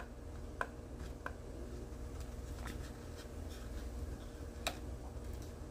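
Light clicks and scraping of plastic scale-model car parts being handled, as the interior tub is pressed and seated inside the model's body. About five small clicks are spread through, the sharpest a little before the end.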